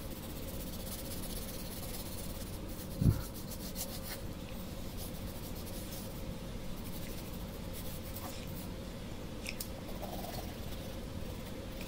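Graphite pencil scratching and rubbing on drawing paper in steady shading strokes, with light ticks of the lead. A short dull thump sounds about three seconds in.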